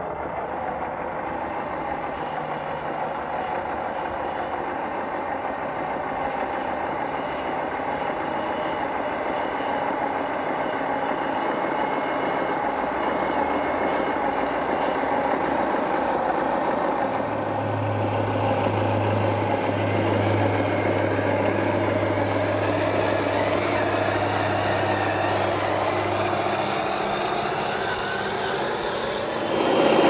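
HG P802 radio-controlled 8x8 truck running slowly under load, towing a lowboy trailer with an RC bulldozer on it. Its motor and drivetrain give a steady mechanical running sound that grows slowly louder as it comes closer.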